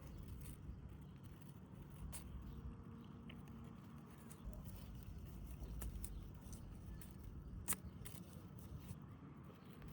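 Quiet outdoor garden ambience: a steady low rumble with scattered soft rustles and clicks, one sharper click about eight seconds in.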